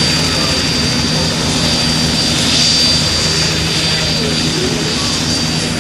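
Single-engine propeller airplane flying overhead in an aerobatic display, its engine and propeller droning steadily.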